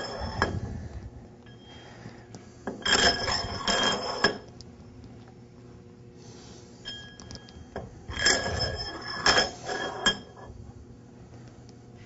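Steel tie rods clinking and scraping as they are picked up and slid through the steel end bells of a waterjet intensifier, in three bursts with a ringing metallic tone, and a few light ticks between them.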